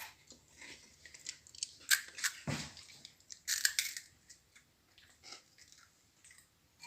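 Kellogg's Choco Fills cereal pillows, crisped again in the microwave, crunching as they are chewed: irregular crisp crunches, the loudest about two and three and a half seconds in. The crisp crunch shows the once-soft pieces have turned crunchy again.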